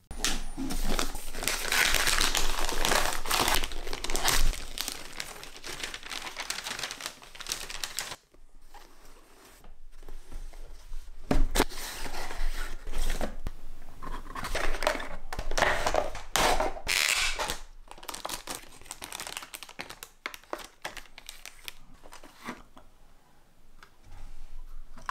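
Gift wrapping paper torn and crumpled by hand, loudest in the first few seconds and again in bursts later on. Toward the end come quieter rustles and light knocks as a cardboard box is opened and handled.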